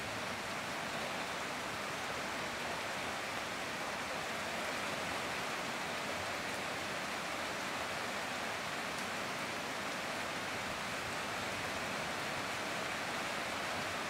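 Heavy rain falling steadily, an even hiss that holds at the same level throughout.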